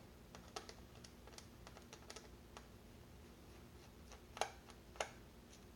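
Faint scattered small clicks and ticks of a magnetic-tip precision screwdriver working out the small screws holding a laptop's LCD panel in its lid, with two sharper clicks about four and a half and five seconds in.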